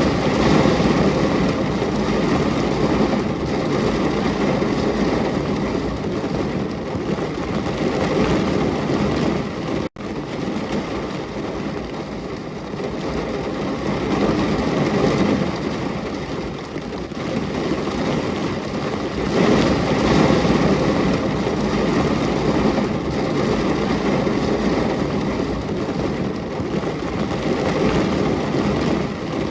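Steady heavy rain with a deep, full sound that swells and eases every few seconds, cutting out for an instant about ten seconds in.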